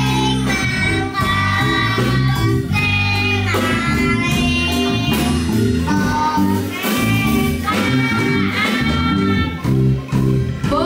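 A child singing a song into a microphone, amplified, over a rhythmic live accompaniment of angklung and band instruments.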